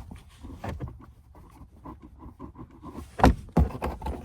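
Car interior trim cover being pushed and tugged: light clicks and rattles, then two loud knocks a little after three seconds in.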